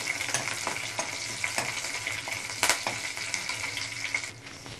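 Tempering of mustard seeds, green chillies and green coriander sizzling in hot oil in a pan as it is sautéed with a spoon, with scattered clicks and taps of the spoon against the pan. The sizzling drops away near the end.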